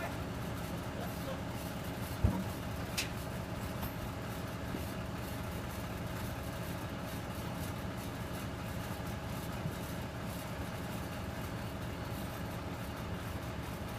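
Tadano truck crane's diesel engine running steadily at low revs. One heavy thump about two seconds in, and a short click a second later.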